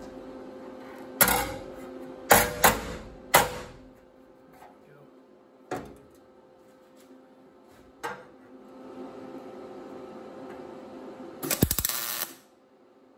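Hammer striking a sheet-steel patch panel against a dolly held behind the factory panel, knocking the sagging patch up into place: four sharp metallic blows in the first few seconds, then two lighter taps. Near the end, a MIG welder crackles for under a second as a tack weld is laid.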